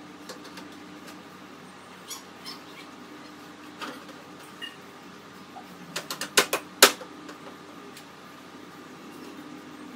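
Sharp clicks and knocks of hands working on the plastic casing of a wall-mounted split air conditioner's indoor unit as its cleaned parts are fitted back. A quick cluster of louder clicks comes about six seconds in.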